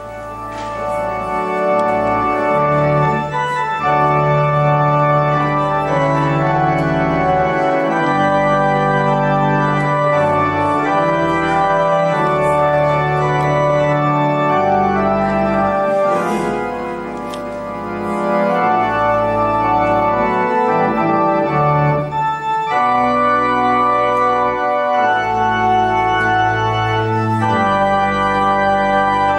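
Church organ playing slow, sustained chords over a moving bass line, briefly softer a little past halfway through.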